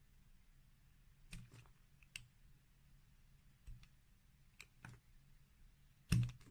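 Slime being squished and stretched, giving a scattered series of soft clicks and pops at irregular gaps, the loudest near the end.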